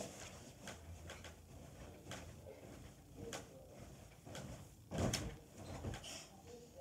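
A child doing flips on a bed: scattered light knocks from the bed and mattress, then a heavy thump about five seconds in as he lands on the mattress, with a smaller thump just after.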